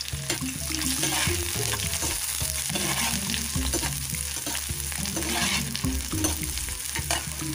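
Sliced onions sizzling in hot oil in a non-stick frying pan, stirred with a steel spoon that clicks and scrapes against the pan.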